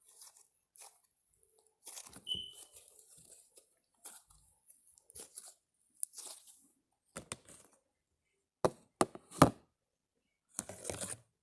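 Slime being squished and stretched by hand, with irregular squelching and crackling and three sharp pops close together about nine seconds in.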